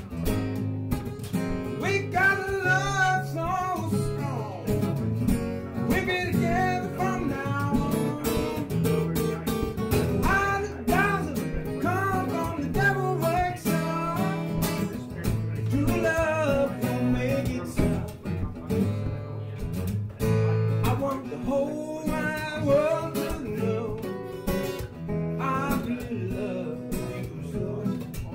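Acoustic guitar strummed and picked in a steady blues accompaniment, playing without pause.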